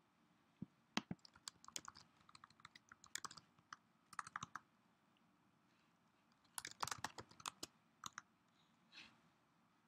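Faint computer keyboard typing, in several short bursts of keystrokes with quiet gaps between, as a shell command is typed at a terminal prompt.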